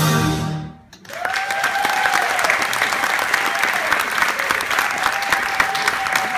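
The dance music's last chord dies away, then an audience bursts into steady applause about a second in, with one long pitched cheer rising and falling above the clapping.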